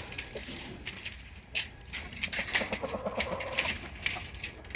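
Hens clucking, with one longer, low pulsing call lasting over a second about halfway through, among scattered short sharp clicks.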